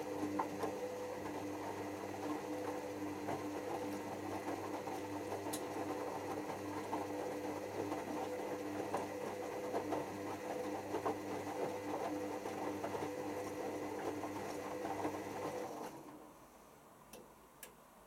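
Hoover WDYNS654D washer dryer turning its drum during the first rinse of a cotton cycle: a steady motor hum with the rustle of tumbling wet laundry. It stops about sixteen seconds in as the drum comes to rest, and two faint clicks follow.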